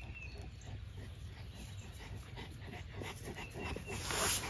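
A Cane Corso panting, faint and steady, with a louder breathy hiss about four seconds in.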